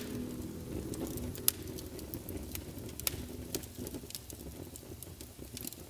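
Wood fire crackling in a fireplace: irregular sharp pops over a soft hiss, growing quieter toward the end.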